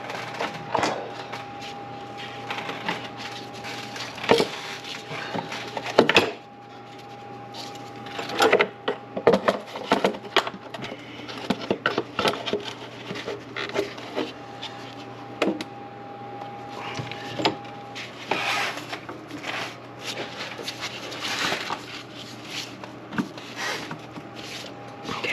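Valve cover and tools being handled over the engine: scattered clicks, knocks and rubbing as the cover is set down and lined up on the cylinder head, with a faint steady whine that comes and goes.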